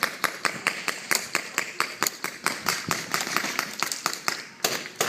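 Paintball markers firing in rapid, uneven volleys of sharp pops, several shots a second with no pause.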